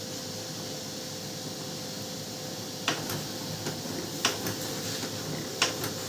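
Canon LBP6030 laser printer running a print job: a steady mechanical hum with three sharp clicks about a second and a half apart. There is no gear crackle, the gear fault having been fixed.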